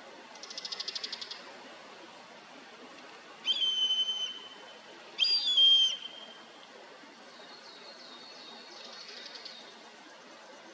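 Common buzzard giving two loud, drawn-out high calls about a second and a half apart, each dropping at the start and then holding steady. A rapid trill comes near the start and again more faintly later.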